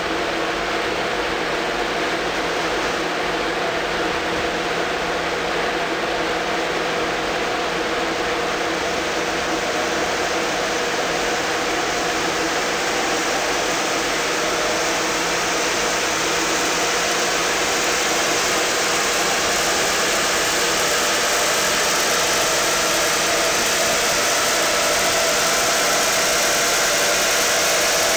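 Mitsubishi Pajero 3.2 DI-D four-cylinder turbodiesel running on a chassis dynamometer under a steady, loud rushing noise. Its note climbs slowly in pitch and loudness through the second half.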